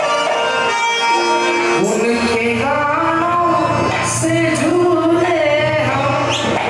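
Live singing with instrumental accompaniment. Over held instrumental tones, a voice comes in about two seconds in and sings long, ornamented lines that bend up and down in pitch.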